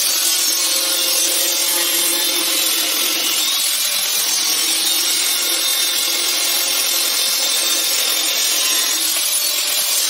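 Handheld angle grinder with a cutting disc running steadily as it cuts into a rusty steel plate, a continuous loud grinding whine.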